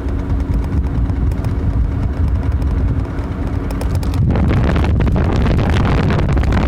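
Wind rushing over a phone microphone on a moving bicycle, with road rumble and a faint steady hum. About four seconds in it turns louder and rougher, with rapid ticking and rattling.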